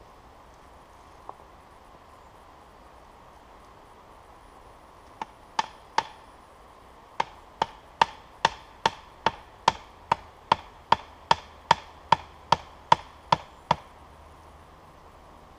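Fixed-blade knife chopping into the top of a wooden stake: a run of about twenty sharp strikes, roughly two and a half a second. It starts about five seconds in, pauses briefly, then keeps a steady rhythm until about two seconds before the end.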